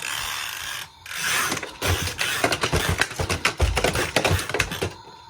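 A vacuum cleaner being handled roughly, clattering with rapid clicks, rattles and knocks from about two seconds in. It is being used forcefully enough that a part works loose.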